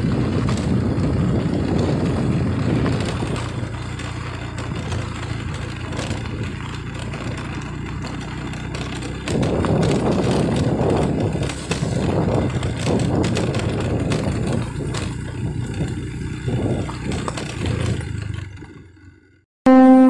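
Motorcycle riding along a bumpy dirt track: a steady low engine hum under wind and road rumble, with scattered knocks from the rough ground. It fades out near the end.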